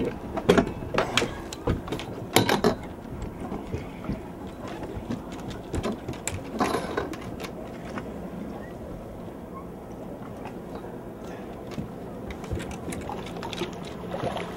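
Spinning reel being cranked and whirring as a hooked fish is played on a bent rod. Several sharp knocks and clicks come in the first few seconds and again about halfway through.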